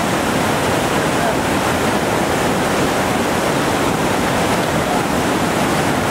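Loud, steady rush of Sweets Falls, a large whitewater rapid on the Upper Gauley River, running at high water of about 4,700 cubic feet per second.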